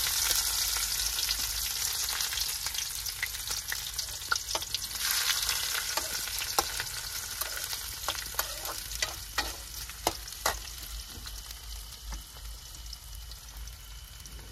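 Chopped onion sizzling in hot oil in a pan with cumin and garlic while being stirred, with clicks and scrapes against the pan. The sizzle is loudest at first and slowly dies down.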